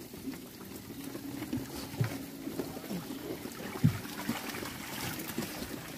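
Water sloshing and splashing in a hauled fishing net packed with small fish as a long-handled scoop net is worked through it, with a few knocks, the loudest a sharp thump past the middle.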